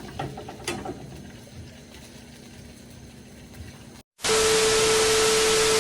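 Faint room sound with a few light clicks, then after a moment of dead silence a loud burst of static-like hiss with a steady beep in it cuts in abruptly near the end: an edited-in static sound effect.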